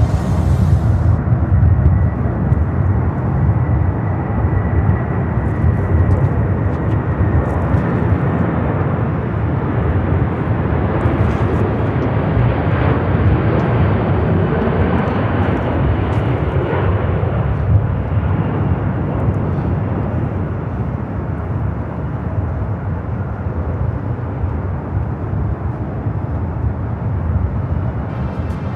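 Large jet aircraft engines running loud and steady, with a high whine that falls slowly in pitch in the first seconds and a lower tone dropping again midway as the jet passes. The sound eases off gradually near the end.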